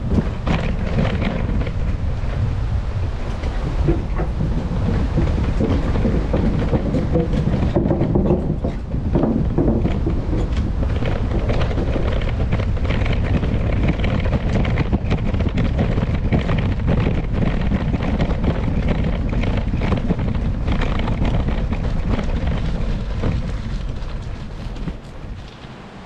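Wind buffeting the microphone of a moving e-bike, a dense low rushing rumble that eases off near the end.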